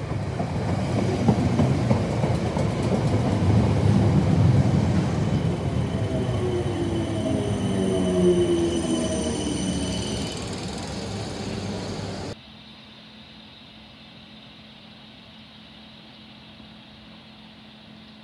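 A Class 455 electric multiple unit running close past on the rails: a loud, steady rumble of wheels on track, with whining tones in its middle part. The sound cuts off abruptly about twelve seconds in, leaving a much quieter steady hum.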